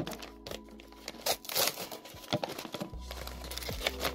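Paper crinkling and rustling in irregular bursts as a hand-drawn paper blind bag is pulled open and unfolded by hand, over background music.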